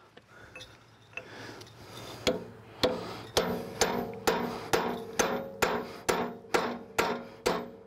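Hammer driving a chisel against the steel end cap of a log splitter's hydraulic cylinder. After a little light scraping, blows come steadily about twice a second, each with a short metallic ring. The blows are knocking the threaded end cap round to unscrew it, because its spanner recesses are too buggered up for a spanner wrench.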